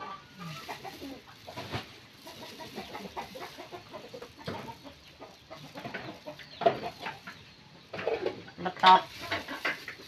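Chickens clucking in a string of short calls, the loudest about nine seconds in.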